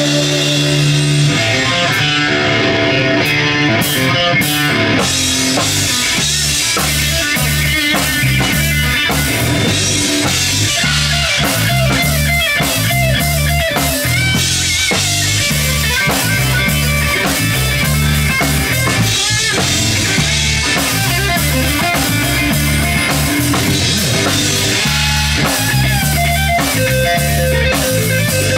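Live rock band playing an instrumental passage without vocals: electric guitar, bass guitar and drum kit, with a steady driving beat.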